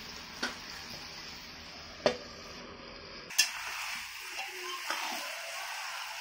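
Chicken curry with potatoes sizzling in a steel kadai while a spatula stirs it. There are three sharp knocks of the spatula against the pan, the last about three seconds in, and after it the stirring scrapes with a brighter sizzle.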